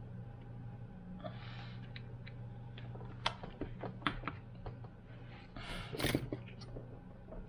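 Scattered light clicks and taps of plastic parts being handled as an air pump is seated in a jump starter's casing, with two short breathy rushes, the louder one near the end, over a steady low hum.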